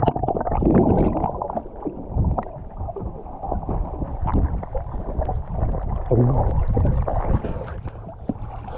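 Water sloshing and gurgling around a camera at the sea surface, muffled while it is under water, with irregular splashes and bubbly knocks.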